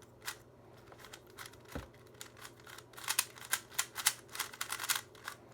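Stickerless Rubik's Speed Cube being twisted by hand: its plastic layers click as they turn, a few scattered clicks at first, then a quick run of clicks from about three seconds in.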